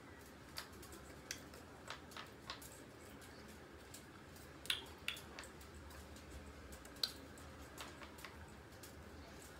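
Faint, irregular clicks and taps from a person signing: hands touching and mouth clicks, the sharpest about halfway through and again a couple of seconds later, over a faint low hum.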